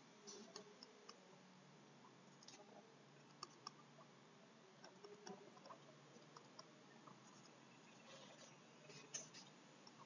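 Near silence with faint, scattered clicks and scratches of a stylus writing on a pen tablet.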